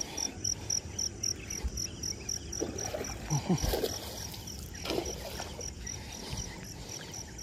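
Insect chirping steadily: a high, pulsed note repeating evenly about four to five times a second, with a few brief knocks near the middle.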